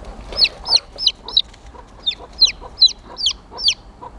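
Baby chicks peeping: a steady run of loud, high, short peeps, each sliding downward in pitch, about two or three a second.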